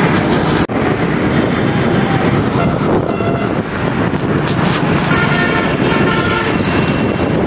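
Loud traffic and wind noise from a moving vehicle on a busy road, with several short car-horn honks in the second half.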